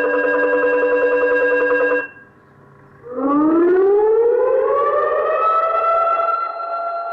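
An automatic school bell unit's electronic gong-bell tone, steady with a fast flutter, cuts off about two seconds in. After a pause of about a second, the unit's siren sound winds up in pitch like a motor siren and levels off into a steady wail.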